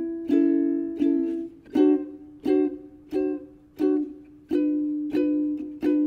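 Background music: a strummed plucked-string instrument playing chords, struck about every 0.7 s, each ringing and fading before the next.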